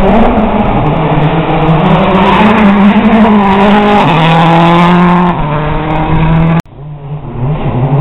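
A World Rally Car's turbocharged four-cylinder engine at high revs as the car drives past on a gravel forest stage. The engine pitch drops suddenly about four seconds in, an upshift. The sound cuts off near the end, and a quieter engine follows, rising in pitch as the next car approaches.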